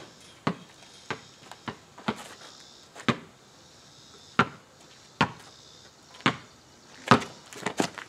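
Basketball dribbled on an asphalt driveway: about a dozen sharp, unevenly spaced bounces, the loudest a little after four seconds in and about seven seconds in, with a quick run of bounces near the end.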